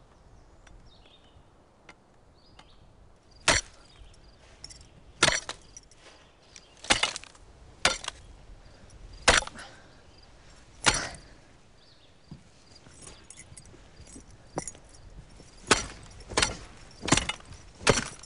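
About ten hard, sharp blows of a hand tool hammering at a revolver's trigger lock against rock, irregularly spaced, mostly one to two seconds apart, beginning a few seconds in and with a few lighter taps between.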